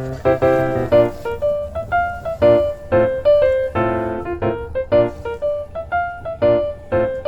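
Background music: a light piano melody with chords, notes struck in a quick, bouncy rhythm.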